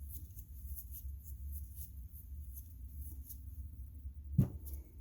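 A steady low hum with faint light ticks, and a single sharp knock about four and a half seconds in.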